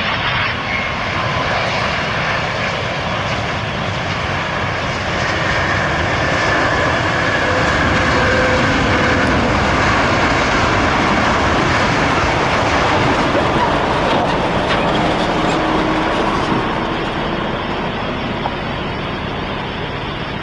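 Jet engine noise from a landing Boeing 777-200ER: a loud, steady rush with faint falling whines. It swells toward the middle and eases off near the end.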